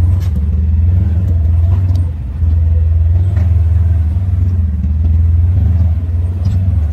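Polaris RZR 1000 side-by-side's engine running steadily as it drives a rocky dirt trail, heard from inside the open cab, with a brief easing about two seconds in and a few light knocks from the rough ground.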